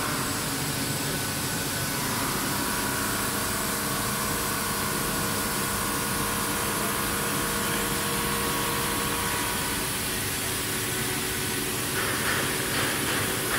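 Steady mechanical hum and hiss of a powered-on Mazak VARIAXIS 500-5X machining center, with faint steady whining tones running through it. The hiss rises briefly near the end.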